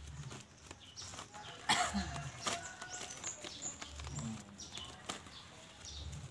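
Wrapping around a potted seedling being torn and peeled open by hand, giving irregular crinkling and sharp crackles, the loudest about two seconds in.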